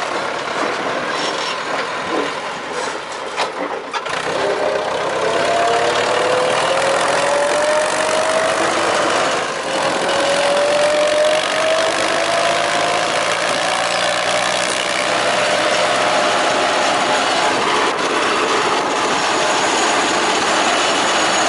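Ursus C-360 tractor's three-cylinder diesel engine running under load while pulling a trailer of wood, its pitch rising twice as it picks up speed. Sharp knocks from the trailer in the first few seconds.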